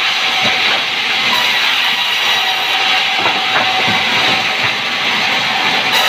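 Sawmill band saw running and cutting sengon wood, a loud steady hiss, with several low knocks of timber being shoved across the steel saw table.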